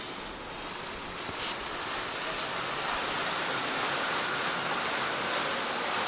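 Steady rushing of strong wind, getting a little louder after about two seconds.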